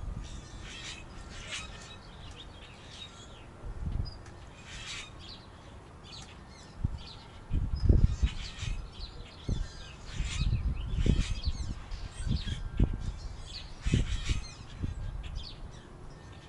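Backyard birds chirping and calling in short harsh bursts throughout. From about seven seconds in, irregular low rumbles and thumps come and go and are louder than the birds.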